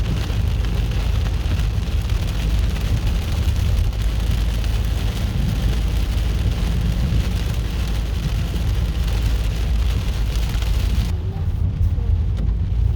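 Heavy rain pouring down in a steady hiss over a constant low rumble. About two seconds before the end, the hiss abruptly drops away while the rumble goes on.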